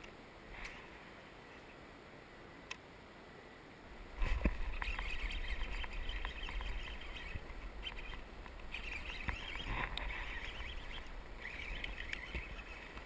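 Fishing reel being cranked in spurts, a scratchy whirr with small clicks, over low rumbling handling noise, starting suddenly about four seconds in as a small bass is reeled to the kayak.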